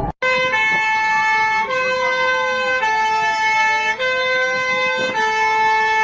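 Emergency alert alarm, rated as Algeria's: two sets of steady high tones alternate about once a second over a police-style siren that slowly rises and falls in pitch. It starts with a short click.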